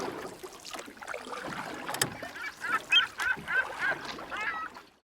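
A bird calling in a quick series of short repeated calls, about three a second, over the second half, after a stretch of mixed clatter and noise with one sharp click. The sound cuts off abruptly near the end.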